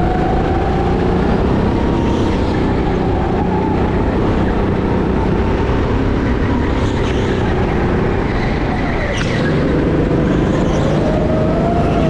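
Go-kart motor running under hard acceleration, its whine rising and falling with speed and dipping sharply about nine seconds in as the kart slows for a turn, over a steady rumble of wind and track noise.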